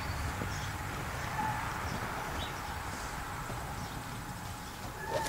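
Outdoor ambience: a steady low rumble with a few short, faint bird chirps, and a single knock near the end.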